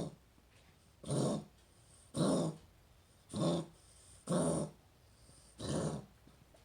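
A dog coughing in a run of short coughs, about one a second, five of them with quiet gaps between.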